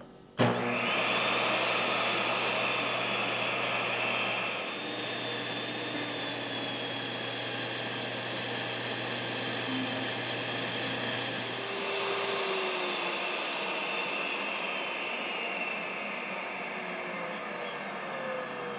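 NutriMill electric grain mill switching on about half a second in and running steadily, a continuous motor whine over a rushing noise, as it grinds soft white wheat berries into flour on a medium setting.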